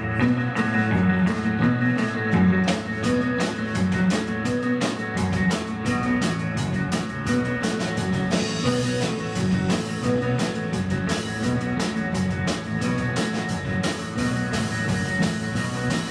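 Live rock band playing an instrumental passage on two electric guitars, electric bass and drum kit, with a busy, steady drum beat.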